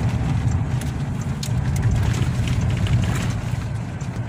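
Steady low rumble inside a car cabin while driving: engine and tyres on a concrete road, with a few faint light clicks.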